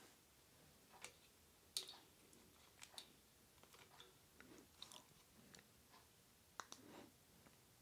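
Faint handling noise from a smartphone being moved and turned around in the hand: scattered soft clicks and rubs, the sharpest a little under two seconds in and two more close together near the end.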